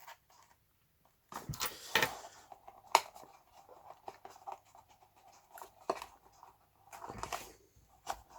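Pocket knives being handled: a run of light clicks, scrapes and rustles, with one sharp click about three seconds in.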